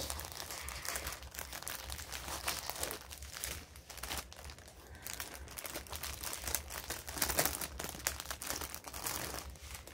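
Small plastic bags crinkling and rustling as they are handled.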